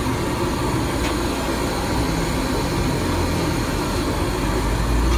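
Steady rumble and hiss of street traffic, with a faint light click about a second in.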